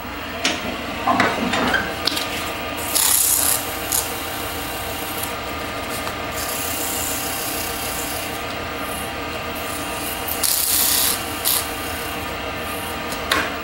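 Sandpaper rubbing on a spinning cocobolo turning on a wood lathe, a dry hiss that swells several times as the paper is pressed on, over the steady hum of the lathe running.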